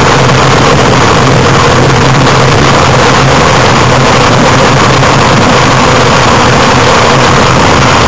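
Gravity race cart rolling fast down an asphalt road, its wheels on the road surface making a loud, steady rumble.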